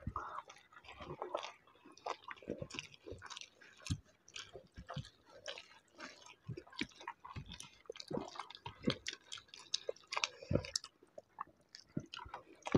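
Two people chewing mouthfuls of rice and dal (dal bhat), with irregular wet clicks and smacks from their mouths.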